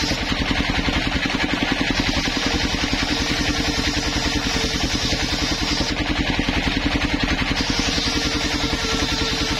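Homemade circular sawbench ripping a wooden board lengthwise: the big blade hisses through the wood over the fast, steady thudding of the engine that drives it. The cutting sound eases about six seconds in and picks up again about a second and a half later.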